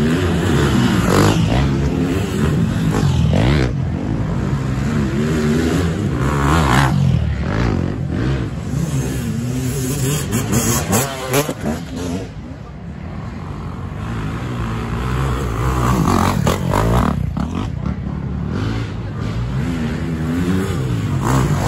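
Dirt bike engines revving hard on a steep hill climb, the pitch rising and falling again and again with the throttle, with several louder surges as bikes pass close.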